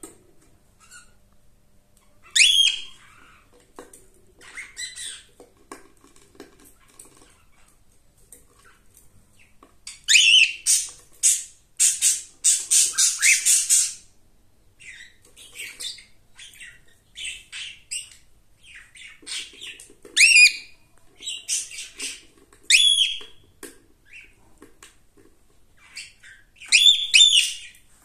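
Cockatiel calling: scattered short chirps and squawks, with a loud run of rapid calls from about ten to fourteen seconds in and more loud calls near the end.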